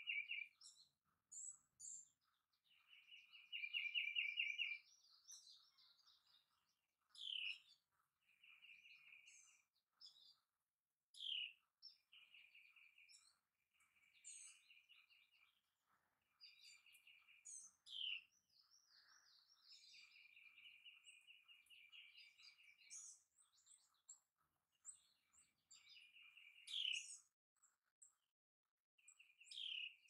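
Several songbirds singing. A fast, even trill comes back every couple of seconds, with quick high notes that slide downward from other birds in between.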